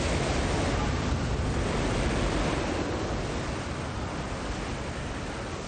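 Tornado wind: a loud, even rushing noise that fades slowly.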